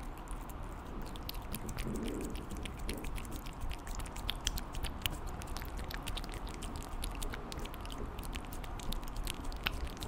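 An American Curl cat eating a treat from a packet held to its mouth, picked up close by the microphone: rapid, irregular mouth clicks of licking and chewing, several a second.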